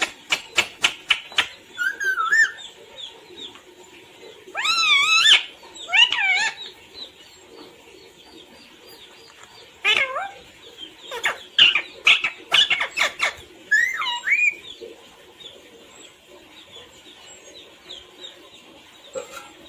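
Pet parrot calling: short screeching, bending calls, mixed with quick runs of sharp clicks near the start and again around 11 to 13 seconds in.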